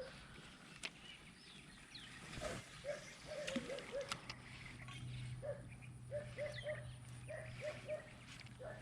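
Wildlife calling: runs of short, low hooting calls repeated several in quick succession, with scattered high bird chirps above them. A steady low hum comes in about halfway through.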